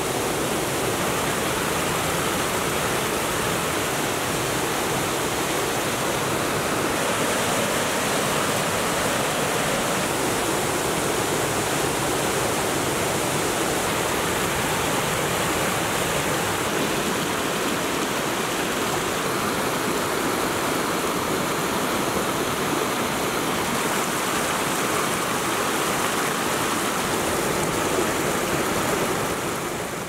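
Steady rushing and splashing of the Sušec waterfall and its cascading stream over mossy rocks, fading out at the end.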